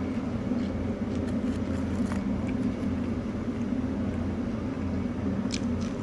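Steady low hum of background noise with a few faint, short clicks.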